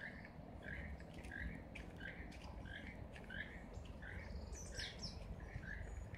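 A bird calling over and over, a short call repeated about twice a second, with a brief higher-pitched call from another bird near the end. A low rumble of movement lies beneath.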